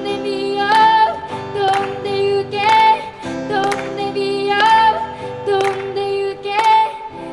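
A young girl singing to her own acoustic guitar, with strummed chords falling about once a second.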